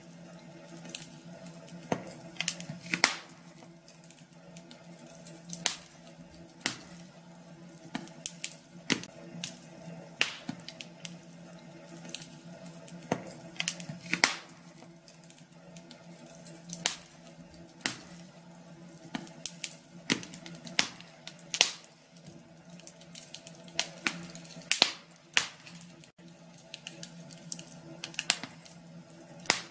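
Wood fire crackling in a fireplace: irregular sharp pops and snaps, now single, now in quick clusters, over a low steady hum.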